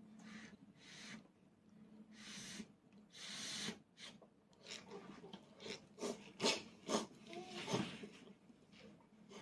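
A toddler eating: a fork clinking and scraping in a ceramic rice bowl, several sharp clicks about five to eight seconds in, after soft breathy rustles in the first few seconds.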